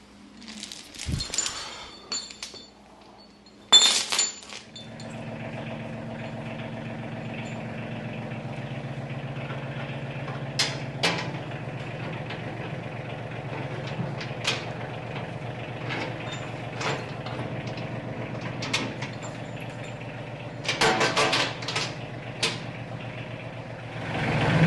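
A few knocks and one sharp clank, then a tractor engine starts about five seconds in and runs steadily at idle. Sharp clanks break in now and then.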